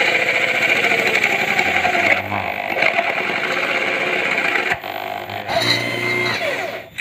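Corded electric hand drill running under load, boring a concealed-hinge cup hole into a wooden cabinet door panel: a steady motor whine with cutting noise, easing briefly about five seconds in and stopping near the end.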